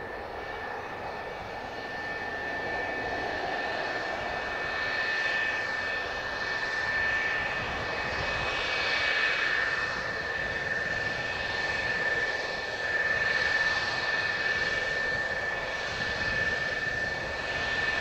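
F-4EJ Kai Phantom II's twin J79 turbojets running at taxi power: a steady high whine over a broad rushing jet noise, growing gradually louder as the jet taxis toward the listener.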